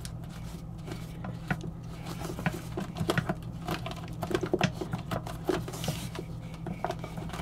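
Flexible water supply hose's plastic nut being threaded and hand-tightened onto an RV toilet's water inlet valve: many small irregular clicks and scrapes of plastic, over a steady low hum.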